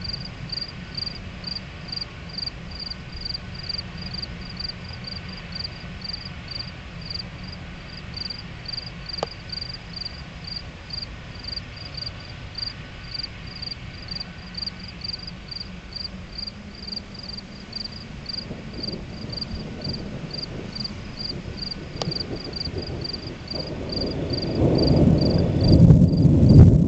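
Crickets chirping steadily, about two high chirps a second, over a low steady noise. Near the end a loud low rumbling swells up and nearly covers them.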